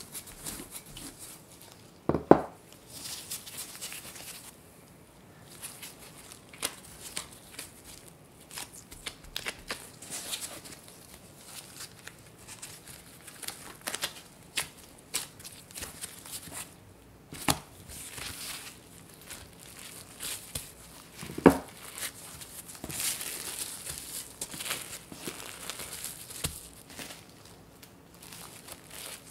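Wooden rolling pin rolling and pressing pastry dough on a bamboo cutting board, with rustling as the dough is handled and folded and two sharp knocks, one about two seconds in and one past twenty seconds. Near the end, plastic cling film crinkles as it is wrapped around the dough.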